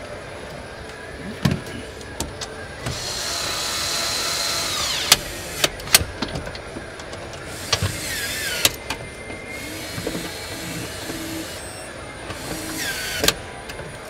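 Handheld power screwdriver running in four short bursts, the longest about two seconds. Several bursts end in a falling whine as the motor spins down. Sharp clicks and knocks of parts being handled come in between.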